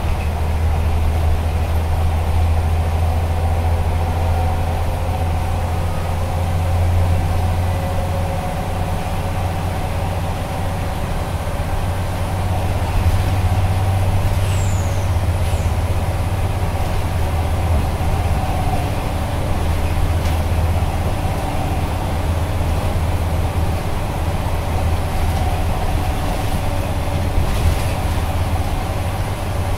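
Scania CN94UB OmniCity bus heard from inside the saloon while under way: its nine-litre five-cylinder diesel gives a steady deep drone, with a fainter whine above it, road noise and interior rattles. A brief high squeak comes about halfway through.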